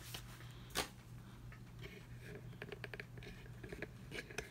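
Faint handling noises on a crafting table: scattered light clicks and taps, with a quick run of small clicks in the middle, over a steady low hum.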